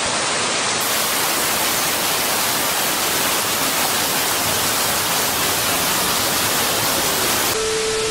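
Loud, even hiss of a heavy tropical downpour pouring onto a street. Near the end it gives way to a TV-static sound effect, a hiss with a steady tone through it.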